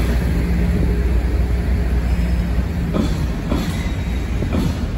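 Freight train's open box wagons rolling past with a steady low rumble, their wheels clicking over rail joints several times in the second half.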